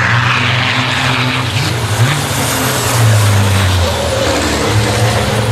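Racing trucks' big turbo-diesel engines running hard as two trucks come through a corner close together. The engine note dips and rises around two seconds in.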